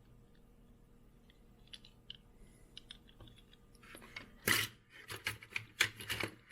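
Small die-cast toy cars being handled: scattered faint clicks, then from about four and a half seconds in a run of louder clicking and clattering, like metal cars knocking against each other and against a tray.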